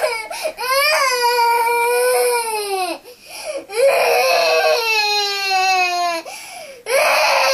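A young girl crying loudly in long, high wails. There are about three cries, each sliding down in pitch, with brief catches of breath between them.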